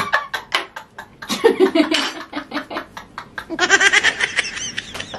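People laughing hard: quick breathy bursts of laughter, then a higher-pitched, squealing laugh from about three and a half seconds in.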